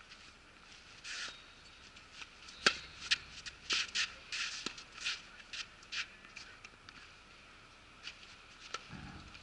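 A tennis serve: the racket strikes the ball with one sharp crack about three seconds in. Quick scuffing shoe steps on the court follow, with a few fainter ball strikes from the rally.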